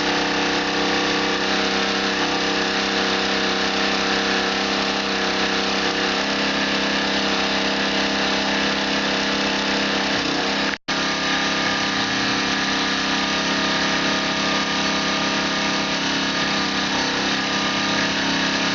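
Small petrol engine of a 72V 3000W Cyclone e-bike hybrid generator running steadily at constant speed, its casing lined inside with one layer of felt that only slightly reduces the noise. The sound cuts out completely for an instant about eleven seconds in.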